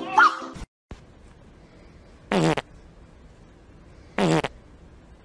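Two short fart noises about two seconds apart, each a brief buzzy blurt lasting about a third of a second, with a wobbling pitch.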